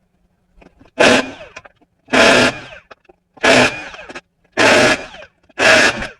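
Impact wrench running in five short bursts about a second apart, loosening the wheel's lug nuts.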